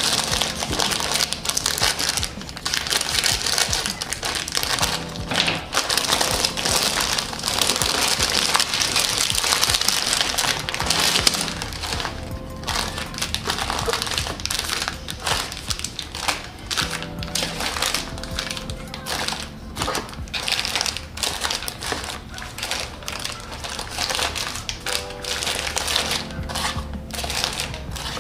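Plastic and foil snack wrappers crinkling and rustling in irregular bursts as they are handled and unpacked, over soft background music.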